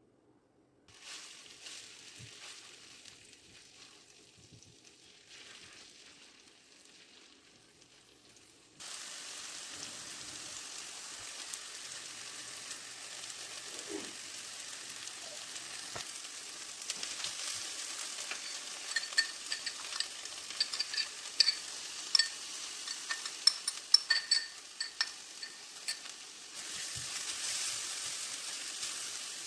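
Food frying in a pan: a steady sizzle that gets abruptly louder about a third of the way in. From about halfway on, many sharp crackles and pops of spitting fat break through it.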